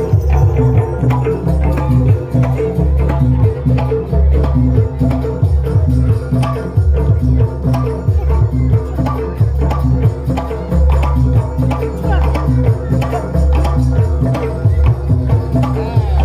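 Loud East Javanese jaranan music: fast, dense kendang hand-drum strokes over gamelan with steady sustained low notes.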